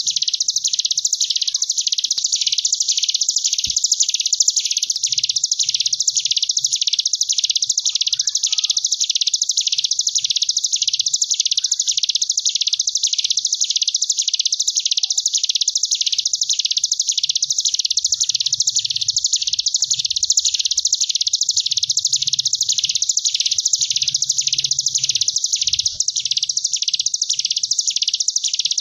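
Ciblek gunung (a prinia) singing its 'ngebren' song: an unbroken, high, buzzing trill that swells and dips in even waves a little more than once a second, the 'wasp-wave' style used as a master song for training young prinias.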